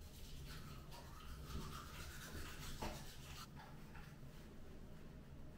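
Faint toothbrush scrubbing on teeth in quick repeated strokes, stopping about three and a half seconds in.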